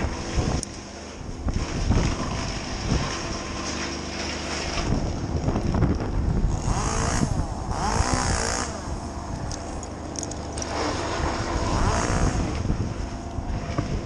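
Petrol engine of tree-work machinery running steadily. It goes louder and higher in two spells, about halfway through with the pitch sweeping up and down, and again near the end.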